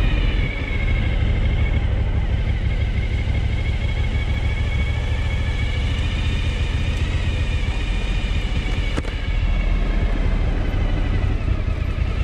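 Suzuki V-Strom 1000's V-twin engine running steadily on the move, under a continuous heavy low rumble, with a faint high whine that drifts slowly in pitch.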